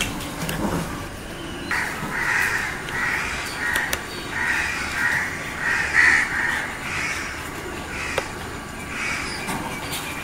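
A crow cawing over and over, about two caws a second, starting about two seconds in.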